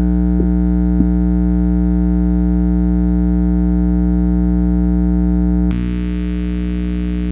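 Mains transformer of a Yihua 939D soldering station humming loudly and steadily, with a stack of buzzy overtones. The hum comes from its laminations, whose screws have worked loose after the unit overheated. About three-quarters through, the hum drops slightly in level and takes on a hiss.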